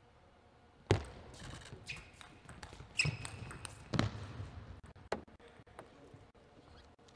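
Table tennis rally: the ball cracking off the rackets and bouncing on the table, with the loudest hits about a second apart and lighter ticks in between.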